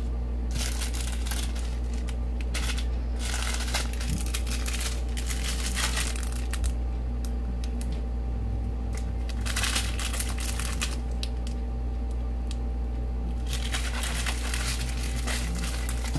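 Small plastic bags of diamond-painting drills crinkling as they are handled and sorted, in four spells of rustling with short pauses between them, over a steady low hum.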